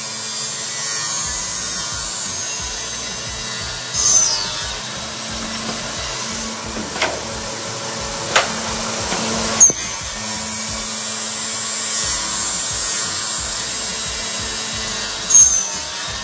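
Double-head aluminium cutting saw running with a steady high whine, its blade cutting through an aluminium profile with a short squeal. Partway through, the saw stops and three sharp clicks follow. The saw then starts up again and makes a second cut.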